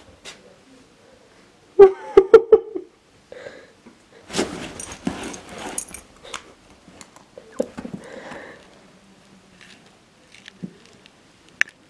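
A husky playing with a wooden clothespin on a leather sofa: sharp clicks and a few short vocal sounds about two seconds in, then a longer stretch of rustling and scuffling against the leather, with scattered small clicks.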